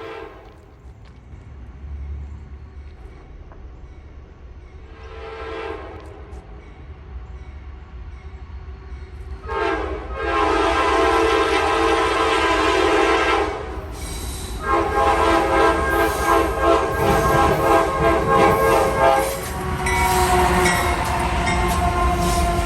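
GE AC44C6M locomotive's multi-chime air horn sounding a string of blasts: a short one about five seconds in, then two long ones, the second pulsing rapidly. Near the end the chord's pitch falls and the rumble and clatter of the passing locomotive and train rise under it.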